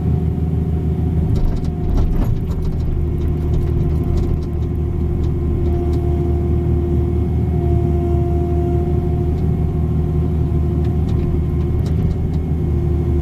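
Diesel engine of a Cat 305 mini excavator running steadily while digging, with a steady hydraulic whine that gets stronger for a few seconds past the middle as the boom and bucket work, and a few short clicks about two seconds in.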